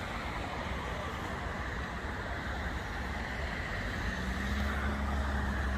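Road traffic at a city intersection: a steady wash of passing cars, with a low engine hum coming in about four seconds in and growing a little louder as a vehicle draws near.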